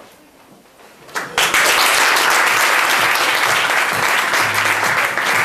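Audience applause, starting suddenly about a second in after a brief lull and then holding at a steady level.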